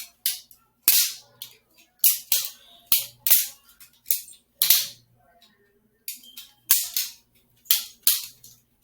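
Balisong (butterfly knife) being flipped: the handles and blade clacking against each other in a fast, irregular series of sharp clicks, about twenty in all, with a short pause a little past the middle.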